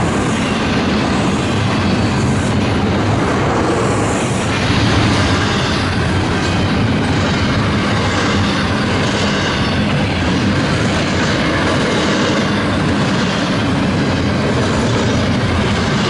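Freight cars of a long double-stack container train rolling past at speed: a loud, steady noise of wheels on rail.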